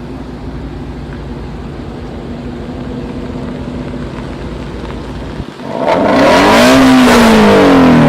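Ford Mustang Shelby GT350's V8 idling steadily. About five and a half seconds in it is revved hard, loudly, its pitch climbing and then falling back.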